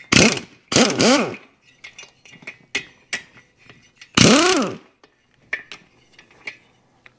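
Handheld power driver with a socket spinning the head nuts off a motorcycle cylinder head: three short spin-ups, each rising then falling in pitch, near the start, about a second in and about four seconds in. Light metallic clicks of the socket and loosened nuts come in between.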